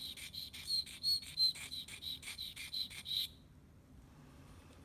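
Sharpening stone scraping against the steel blade of a Columbia 4R/4L dental curette in quick, even back-and-forth strokes, about four a second, while the toe is rounded. The strokes stop about three seconds in.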